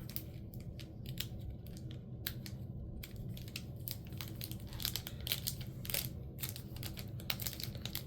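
Foil trading-card booster pack being handled and worked open: irregular crinkles and small crackles of the wrapper, over a low steady hum.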